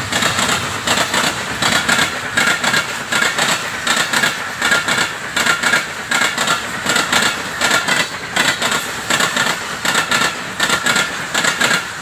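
Passenger coaches of a fast Pakistan Railways train running past close by, the wheels clattering rapidly and unevenly on the rails with a rushing noise. The sound cuts off suddenly at the end.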